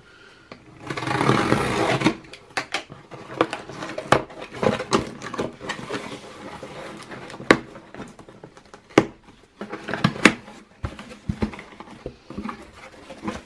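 Cardboard shipping box being opened by hand: a loud ripping rasp about a second in as the taped seam gives, then scattered clicks, scrapes and crackles of the cardboard flaps being worked open.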